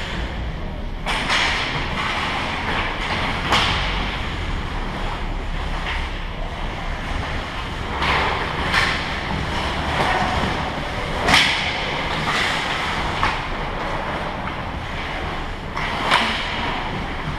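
Ice hockey play on a rink: skate blades scraping and carving the ice over a steady rink noise, with a few sharp clacks and scrapes of play, the loudest about eleven seconds in.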